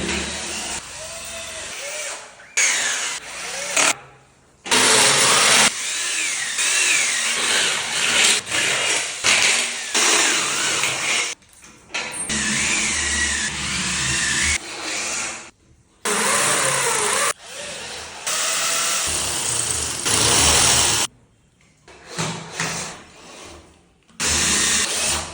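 Power tools working aluminium, drilling and cutting, in a run of loud stretches that start and stop abruptly, with a wavering whine.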